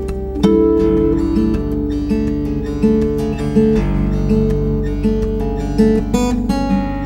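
Solo acoustic guitar instrumental: fingerpicked notes repeating in a steady pattern over held bass notes.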